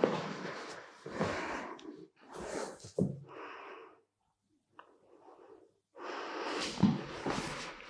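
A person breathing deeply and forcefully, a series of loud noisy breaths in and out during a guided breathing exercise, with a brief knock about three seconds in.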